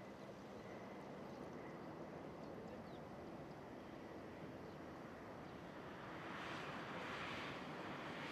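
Distant Boeing 747-400F jet engines on the landing rollout: a steady rushing noise that swells about six seconds in.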